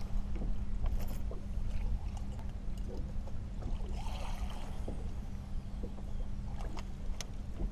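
A musky fishing rod being cast: a swish and the line whirring off the reel about four seconds in. Under it are a steady low hum and scattered small knocks and clicks.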